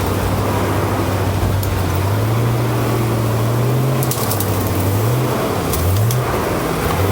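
A vehicle's engine labouring on a rough track, its pitch rising and falling several times as it is revved. A few sharp cracks and clicks come about four and six seconds in.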